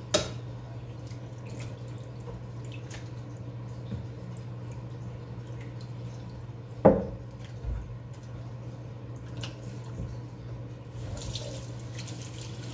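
Kitchen tap running into a stainless steel bowl as beef intestines are rinsed under it, starting about 11 seconds in. Earlier there are two sharp metallic knocks as the metal bowl is handled, the louder one about halfway through with a brief ring, over a steady low hum.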